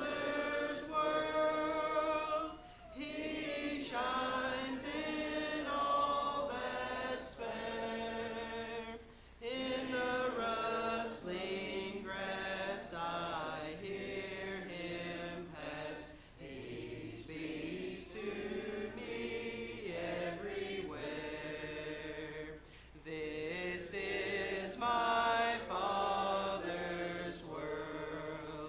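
Church congregation singing a hymn a cappella, many voices together without instruments, following a song leader, in phrases a few seconds long with short breaths between them.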